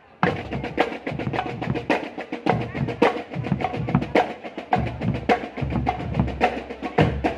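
Marching drum band percussion playing a rhythm: sharp, rapid drum strikes. A deeper, fuller sound joins about halfway through.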